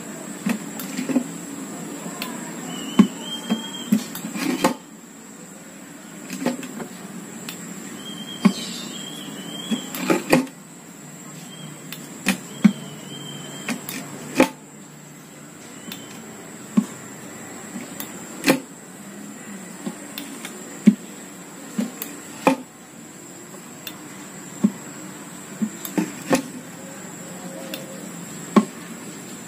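A hand tool punching holes through the bottom of an upturned used can: sharp clicks and knocks, one every second or two, as each hole goes through.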